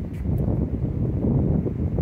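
Wind buffeting the microphone: a rough, low rumble that rises and falls in gusts.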